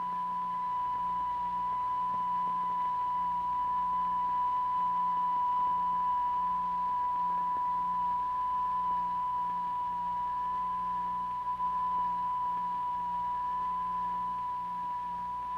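Steady pure sine tone at about 1 kHz, held unchanging, from the tone generator that drives a cymatics vibration experiment.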